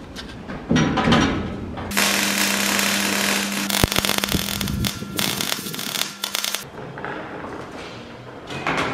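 Electric arc welding on the steel wall of a shipping container: a steady crackle with a low hum, lasting about five seconds from about two seconds in. A few short metal knocks come before it.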